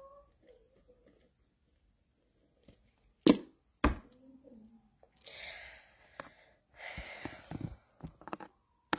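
Handling noises at a desk: two sharp knocks about half a second apart, followed by quieter rustling and a few light clicks.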